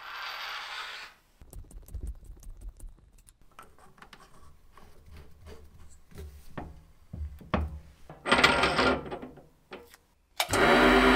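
Workshop handling sounds: a short scraping hiss, then a series of clicks and knocks as small brass bells and tooling are handled. Near the end a metal lathe starts and runs with a steady hum.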